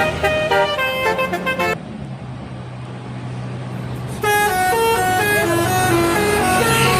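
Bus telolet horn playing a quick melody of stepped notes. It breaks off about two seconds in and starts again about two seconds later, with a low steady engine hum underneath.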